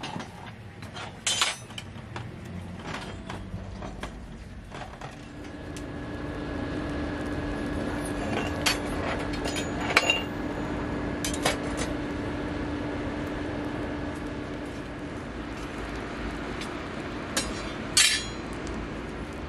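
Forge fire burning under a forced-air blast: a rushing noise with a low steady hum builds about five seconds in. A few sharp metallic clinks of tongs and tools are scattered through it, one of the loudest near the end.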